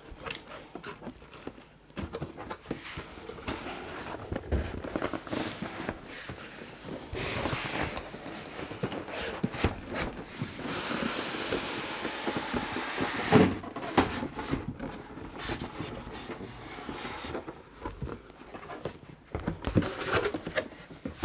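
Cardboard box and packaging of a sewing machine being opened and unpacked by hand: irregular rustling and scraping of cardboard and plastic, with small knocks and one louder knock about two-thirds of the way through.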